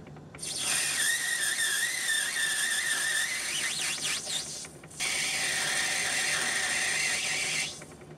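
Myford ML7 lathe's tool cutting a brass nut, giving a loud, wavering high-pitched whistling squeal over the hiss of the cut. It runs in two stretches: the first starts about half a second in and breaks off briefly around the five-second mark, and the second stops shortly before the end.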